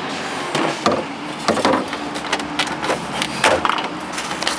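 Sharp knocks and cracks, several at uneven intervals, as a refrigerator's finned evaporator coil and the plastic parts around it are pulled and pried loose by hand.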